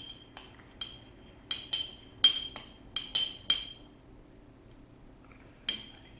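A beer glass tapped repeatedly, each tap a sharp clink with a brief ring: about ten irregular taps in the first four seconds and one more near the end, done to coax more foam out of the wheat beer.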